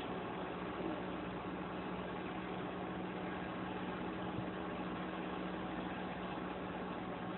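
Vehicle engine idling steadily, heard from inside the cab: an even hum with a steady low tone that does not change.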